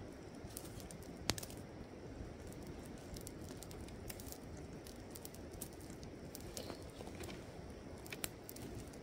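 Small campfire crackling, with scattered pops and one sharp, louder pop about a second in, over a steady low rush of river water.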